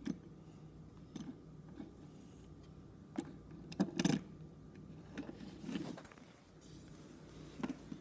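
Metal fidget spinner being flicked and handled on a hard surface: short irregular clicks and taps, loudest around four seconds in.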